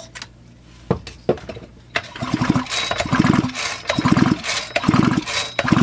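Huztl clone of a Stihl MS440 chainsaw turned over repeatedly on its starter rope without a carburetor, so it does not fire: a few clicks, then from about two seconds in a regular run of rattling pulls a little under one a second. Each pull works freshly added lube through the engine.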